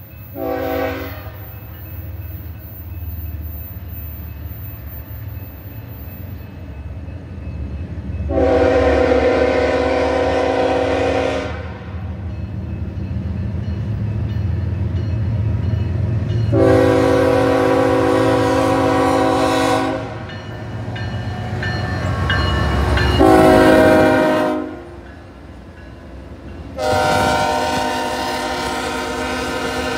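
BNSF freight locomotive air horn sounding a chord: a brief toot at the start, then long, long, short, long, the standard signal for a grade crossing. Under it is the low rumble of the diesel locomotives, growing as the train approaches and passes close by; the last long blast is still sounding at the end.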